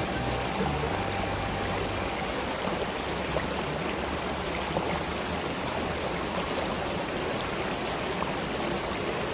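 Shallow river water rushing steadily over rocks and a low stone weir, with background music in the first couple of seconds.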